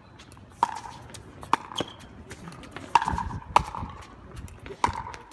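Pickleball rally: hard paddles hitting a plastic pickleball back and forth. Each hit is a sharp, hollow pock, about five loud ones roughly a second apart, with fainter clicks between them.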